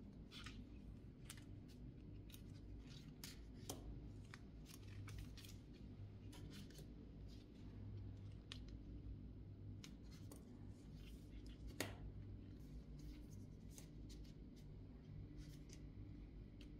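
Faint handling sounds of gloved fingers working a rubber wiper refill blade and its thin metal stiffener strips: scattered small clicks and rubs, with one sharper click about two-thirds through, over a low steady hum.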